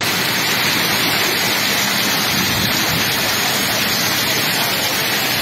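Heavy rain and floodwater rushing through a flooded street: a loud, steady hiss.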